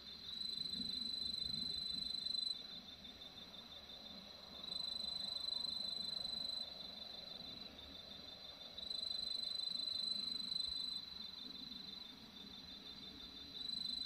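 Crickets trilling at night: one high, steady trill swells louder for about two seconds at a time, roughly every four seconds, over a second insect's fast, even pulsing that never stops.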